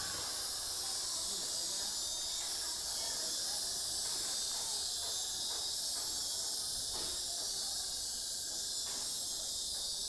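Dense, steady, high-pitched chorus of insects shrilling in the trees, with fainter lower sounds beneath it.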